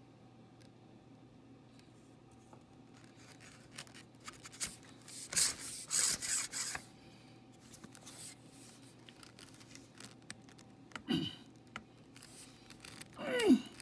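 Carbon-fibre water-fed pole sections and 3D-printed clamps being worked by hand: rubbing and scraping with sharp clicks, loudest about five to seven seconds in. Two short falling tones come near the end.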